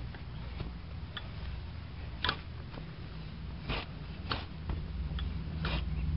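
Manual kick sod cutter being rocked forward through lawn turf. Its steel blade and frame give a sharp click every second or so over a low steady rumble.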